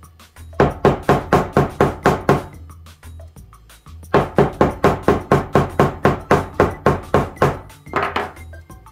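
Nylon mallet pounding a folded leather seam flat: rapid knocks about four a second in two runs, with a pause of over a second between them. The seam is being flattened before it is top-stitched.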